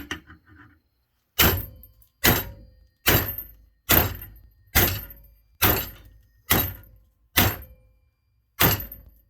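Small sledgehammer striking a stuck bolt nine times, about one blow a second, each with a short metallic ring. The bolt is being driven out because a crushed washer has jammed it on its thread.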